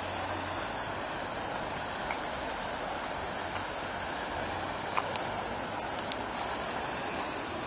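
Steady rushing of floodwater, with a few sharp clicks about five to six seconds in.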